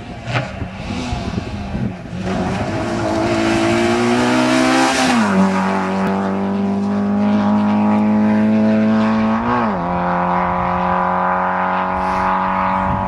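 Peugeot 205 rally car at full throttle: the engine note climbs, then drops twice and holds high and steady between the drops.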